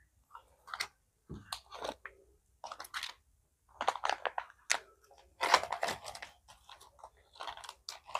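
Plastic bags of candy crinkling and rustling as they are handled and packed into a plastic basket, in irregular bursts.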